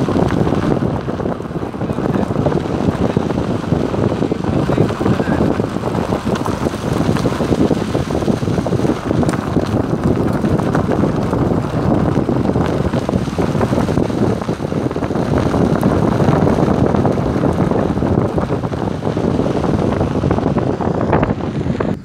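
Steady rushing wind buffeting the microphone at the window of a moving Maruti Suzuki Alto, with the car's running and road noise on a rough dirt track underneath.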